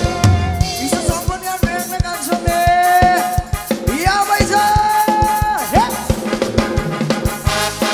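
Thai ramwong dance-band music through the mixing desk: drums keep a steady beat under a melody of long held notes that slide up and down in pitch.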